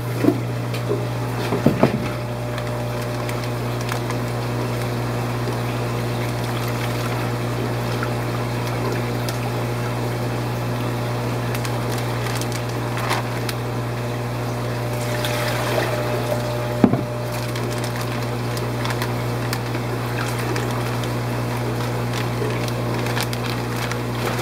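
Steady hum of fish-room aquarium pumps and moving water, with a few light knocks from handling: one at the start, one about two seconds in and one about two-thirds of the way through.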